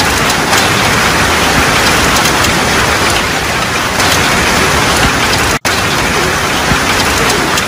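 Heavy rain pouring steadily onto pavement, with a very brief drop-out in the sound about five and a half seconds in.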